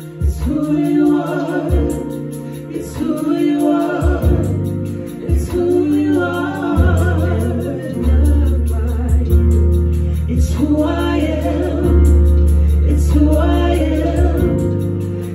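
Live gospel worship song: a female lead with male and female backing singers, accompanied by a Yamaha Motif8 keyboard playing chords and deep sustained bass notes.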